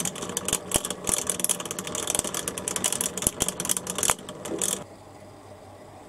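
Washing-machine drain pump's small two-pole permanent-magnet motor running dry with its pump housing off: a steady hum under a fast, dense rattle, noisy because it normally runs in water. About five seconds in the rattle stops, leaving only a faint hum.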